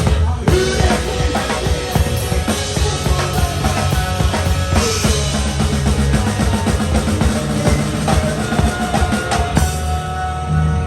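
A live rock band playing, its drum kit to the fore with kick drum and snare hits over steady bass notes and held instrument tones.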